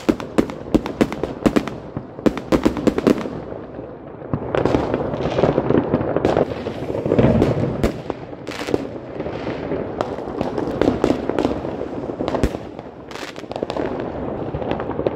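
Fireworks going off all around: a fast string of sharp cracks for the first few seconds, then a dense, continuous crackling with scattered louder bangs from many fireworks at once.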